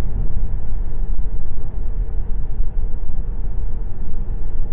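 Steady low rumble of tyre, road and wind noise inside the cabin of a Tesla Model 3 moving at highway speed, around 50 to 60 mph.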